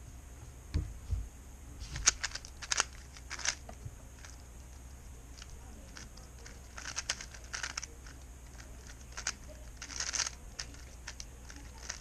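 Speed cube being turned quickly in short bursts: rapid clicking and rasping of the plastic layers, with pauses between bursts. A couple of low thumps come about a second in.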